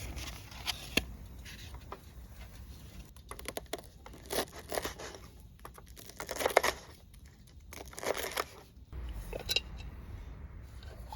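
Wrapping material crinkled and torn by hand in short, irregular rustling bursts, loudest about two-thirds of the way through.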